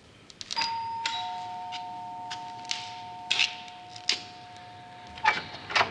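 Two-tone door chime rung once: a higher note, then a lower one about half a second later, both ringing on together for about four seconds before stopping. Scattered sharp clicks and knocks run through it, with two louder knocks near the end.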